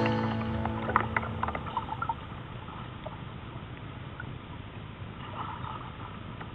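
The background music's last chord rings out and fades over the first two seconds, then a steady wash of river water with a few small splashes and drips.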